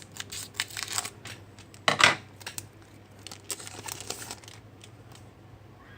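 Trading card pack wrapper being torn open and crinkled by hand: a run of crackles, with the loudest rip about two seconds in, then scattered clicks of cards being handled.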